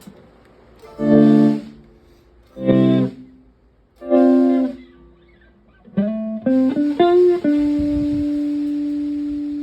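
Stratocaster electric guitar through a Fender Twin Reverb–style amp and an Abductor II echo pedal: three short, cut-off chords about a second and a half apart, then a quick run of single notes about six seconds in, ending on one long held note that slowly fades.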